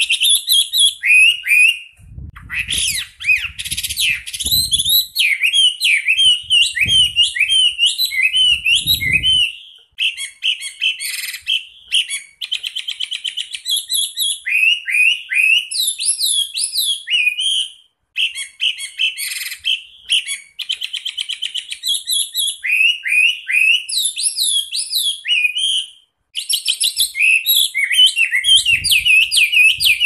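Chinese hwamei singing loud, fast phrases of rich whistles and sliding notes. The phrases are broken by rapid rolling trills of quickly repeated notes and come in long bursts with brief pauses between them.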